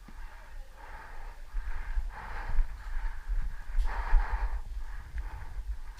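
A person breathing heavily close to the microphone, in several hard puffs, the strongest about four seconds in, over a low rumble of wind and handling on the camera.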